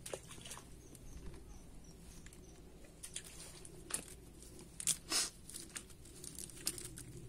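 Rustling and crinkling of a cast net being handled and shaken out, with plant leaves brushing against it, broken by scattered sharp clicks and a few louder rustles about four and five seconds in.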